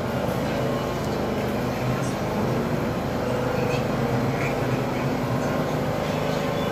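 New York City Subway G train pulling slowly into an underground station, its wheels and motors running with a steady rumble and a few held tones.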